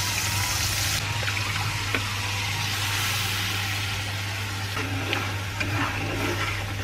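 Blended garlic and candlenut paste sizzling steadily as it hits hot oil in a frying pan and is stirred, with a few light taps and scrapes of a metal spatula.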